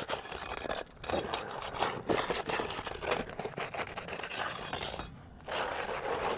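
Metal roofing tool scraping and clinking against asphalt shingles as ring-shank nails are pried loose, in quick irregular knocks and scrapes with a short pause about five seconds in.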